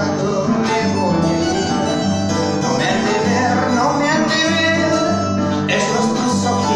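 Large wooden folk harp played solo: a plucked melody over a regular, repeating bass on the low strings.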